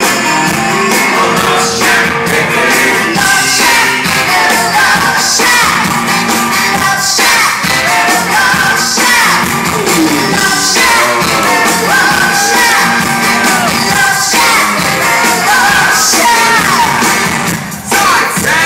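A live hard rock band playing loud, with singing, heard from the audience in a large hall; a heavy accent falls about every two seconds.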